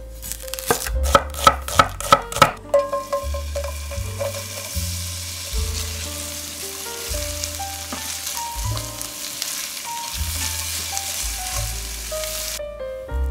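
A knife cutting through a red onion on a wooden cutting board, about eight quick sharp cuts in the first couple of seconds. Then sliced red onion sizzling in hot olive oil in a stainless steel sauté pan as a spatula stirs it; the sizzling cuts off suddenly near the end.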